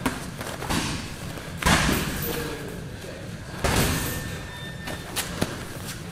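Thuds of MMA sparring in a gym: strikes landing on gloves and bodies and feet shuffling on the floor mats, with two heavier thuds about two and four seconds in that ring on briefly, among smaller knocks.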